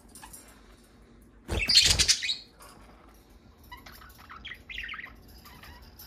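Budgerigars chirping, with a few short falling chirps about four to five seconds in. Before that, about a second and a half in, comes a loud rustling flutter lasting under a second.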